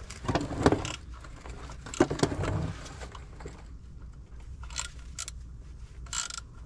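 Hand thread tap being turned by hand into a bolt hole to start cutting threads for a Time-Sert insert: a few groups of metallic clicks and scrapes from the tap and its wrench as the tap's teeth begin to bite.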